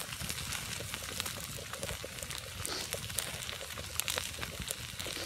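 Wood campfire crackling with scattered sharp pops over a steady hiss, as steaks sizzle on top of the burning logs.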